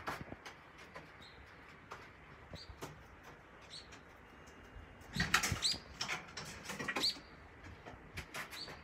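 Two captive Japanese green pheasant hens scrambling and flapping in their wire pen. A loud burst of clattering knocks and wing flaps comes about five seconds in and lasts about two seconds. Short, high, rising chirps recur among the scattered knocks.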